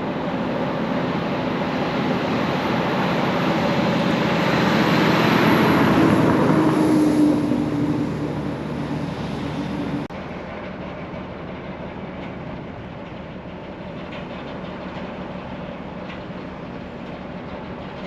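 Heavy ship's engine and machinery rumble as the cargo ship moves slowly into the canal lock. It builds to its loudest about six or seven seconds in, then eases. After a sudden drop about ten seconds in, a quieter steady rumble continues.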